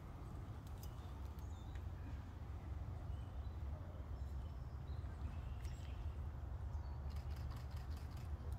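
Quiet woodland ambience: a low steady rumble on the microphone, with faint, short bird chirps now and then.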